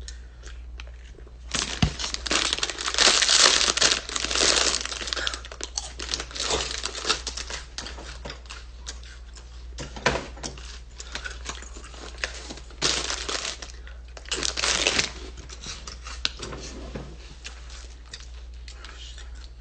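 Plastic snack packaging crinkling and being torn open in irregular bursts, loudest in the first few seconds and again twice near the middle.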